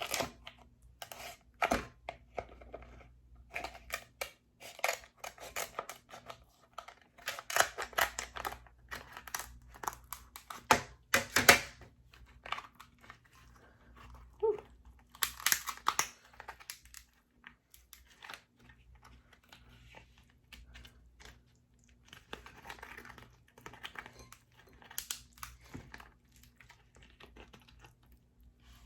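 Close-miked eating sounds of king crab legs: shells cracking, snapping and being pulled apart, with chewing in between, in irregular bursts that ease off for a few seconds past the middle.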